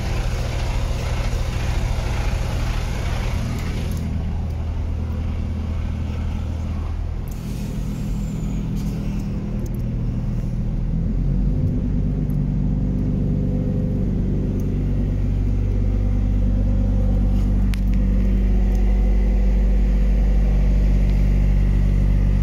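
An engine idling steadily, with a hiss over it that stops suddenly about four seconds in. The engine note shifts a little and grows louder through the second half.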